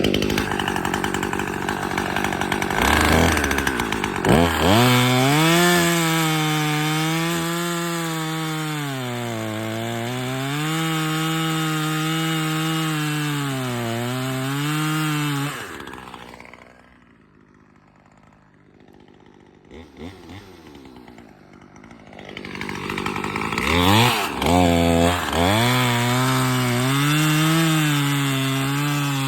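Husqvarna T540XP Mark III top-handle two-stroke chainsaw running at high revs and cutting wood, its pitch dipping and recovering as the chain bites. About halfway through it drops away to quiet for several seconds, then revs up again and cuts on.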